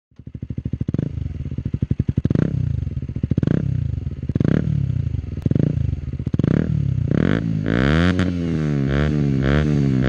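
KTM 640 Duke II's single-cylinder LC4 engine with an Akrapovic exhaust running loud, its throttle blipped about once a second. About seven seconds in, this gives way to a steady droning tone whose pitch wavers up and down in a regular pulse, a little under twice a second.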